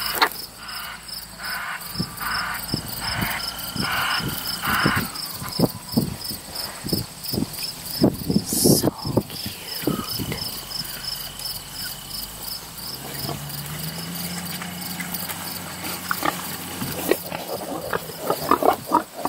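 Insects chirping steadily in rapid, evenly repeated pulses, with scattered light clicks and rustles. Near the end newborn piglets start to squeal and grunt in short bursts as they are touched.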